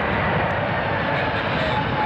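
Jet engines of a Boeing 747-400 airliner running, a steady rushing noise with no break.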